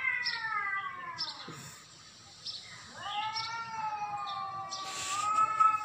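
A cat yowling at a rival in a standoff. A long wail slides down in pitch and fades about a second and a half in. After a short pause, a second long wail starts about three seconds in, rises slightly and is held.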